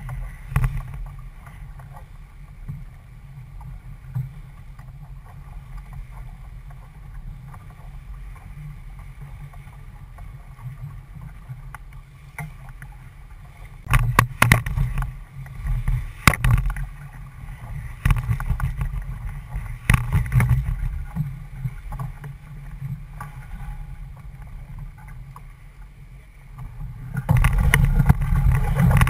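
Wind rumbling on the microphone and water rushing past the hull of a C&C 31 sailboat heeled under sail in a chop. Sharp knocks and slaps come in a cluster about halfway through, and the noise grows louder near the end as the boat tacks.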